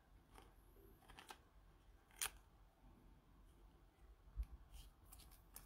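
Quiet handling of glossy trading cards in gloved hands: faint rustling with a few short sharp clicks as cards are slid and flipped, the sharpest about two seconds in, and a soft knock a little after four seconds.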